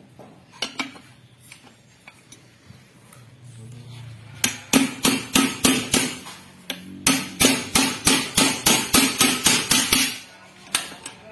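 Hammer striking metal in a quick, even series of blows, roughly three to four a second, each with a short ring. The blows pause briefly in the middle. A few lighter knocks come before the series starts.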